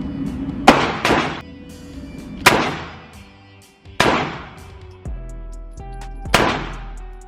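Five shots from a Glock 26-pattern 9mm compact pistol, fired at an uneven pace: two close together near the start, then single shots spaced a second or more apart, each ringing off briefly. Background music plays under them.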